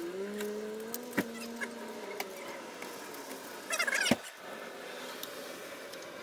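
Metal scraper scraping old gasket and sealant off a steel thermostat housing: a few sharp clicks, then a short rasping scrape with a click about four seconds in. A faint wavering tone sounds under the first half.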